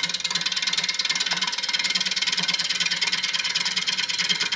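5/8-inch bowl gouge cutting across the bottom of a spinning wooden bowl blank on a lathe, a rapid, steady clatter over the lathe's hum. The blank isn't flat yet, so the gouge strikes only the high spots on each turn.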